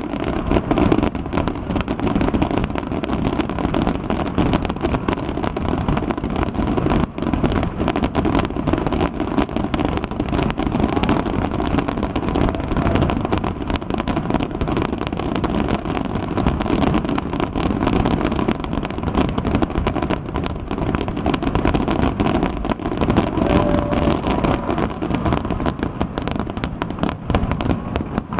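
A dense, unbroken barrage of aerial fireworks: rapid overlapping bangs and crackling with no pause.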